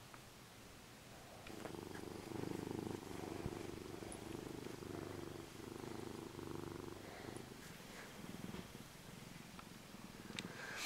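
Black-and-white domestic cat purring close up while its belly is stroked, a steady low purr that starts about a second and a half in and swells and eases in long phases with its breathing. A light click near the end.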